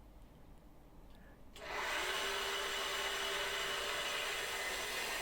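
Pillar drill (drill press) switched on about one and a half seconds in, its electric motor spinning up quickly and then running at a steady speed with a hiss and a steady hum.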